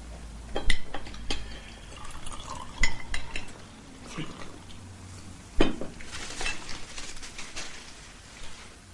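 Clinks and knocks of plates, cutlery and glasses on a table, with one sharp knock about halfway through, and sparkling wine poured from a bottle into a glass, its fizz hissing near the end.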